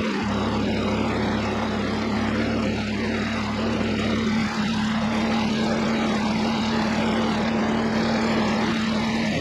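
Kubota diesel engine of an HY680C mini skid steer running steadily, with the hydraulic drive spinning both raised tracks. A steady hum sounds over the engine noise and stops just before the end.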